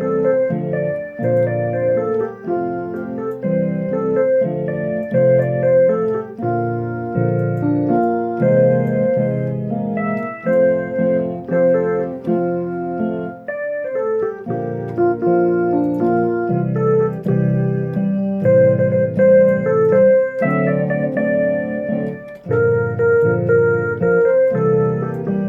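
Keyboard playing an instrumental passage of a song: sustained low chords with a melody of held notes above, the playing briefly thinning about 14 seconds in.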